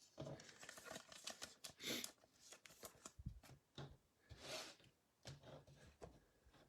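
Faint rustling and light clicks of baseball trading cards and their packaging being handled.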